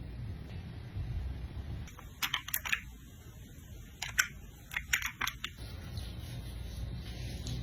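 Makeup containers and tools being handled: two quick runs of small sharp plastic clicks and taps, one about two seconds in and another around four to five seconds in, over a low steady rumble.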